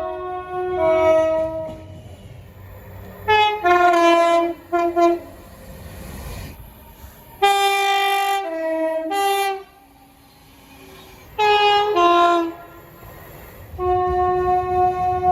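Locomotive air horn sounding a chord of several notes in a series of blasts: a few short, stuttering toots, then longer held blasts, over a low rumble.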